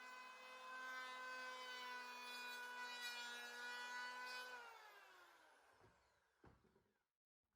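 WEN 6530 6-amp electric hand planer running with a steady motor whine, then switched off about four and a half seconds in, its whine falling in pitch as the cutter head winds down over two seconds. A soft knock comes near the end of the wind-down.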